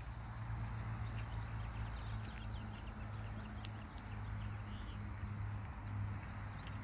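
Outdoor ambience: a steady low hum under a constant rushing hiss, with faint scattered bird chirps.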